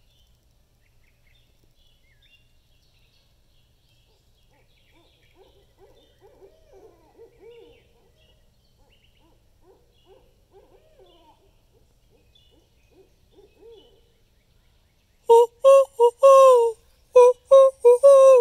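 Barred owls calling. Faint, distant hooting comes and goes through the middle. About fifteen seconds in, a loud run of about six hoots starts from a nearby owl, the longer ones dropping in pitch at the end.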